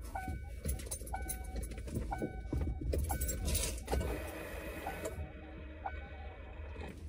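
The Mustang's warning chime, the 'dinger', dings over and over at about one ding a second, with light metallic clinks mixed in.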